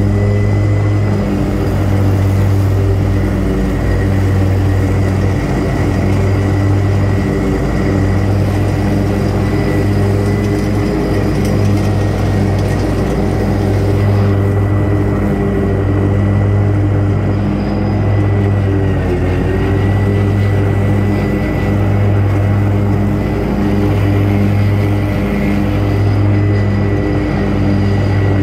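Riding mower's engine running steadily at mowing speed, with a high steady whine over it; the engine speed dips briefly about two-thirds of the way through, then recovers.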